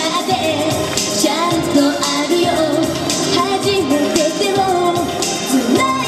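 A female singer singing a pop song live into a handheld microphone over an upbeat recorded backing track, amplified through a PA.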